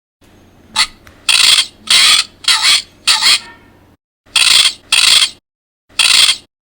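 Recorded parrot squawks played from a sound book's small speaker: a rapid series of short, harsh, screechy calls, about ten in all, with a low electronic hum beneath that cuts out briefly twice.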